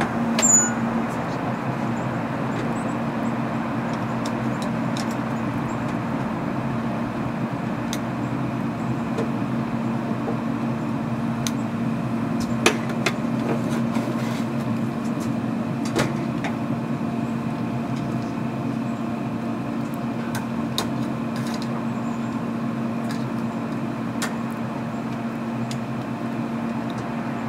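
Traeger pellet smoker running with a steady hum, with occasional light clicks and knocks.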